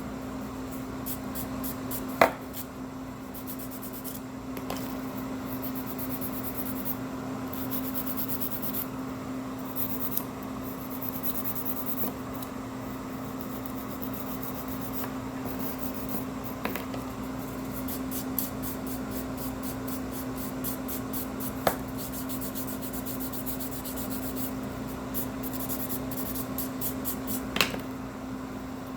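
Hand nail buffer rubbed back and forth over a gel fingernail, soft scratchy strokes smoothing the nail's surface, over a steady low hum. A few sharp clicks: about two seconds in, then twice near the end.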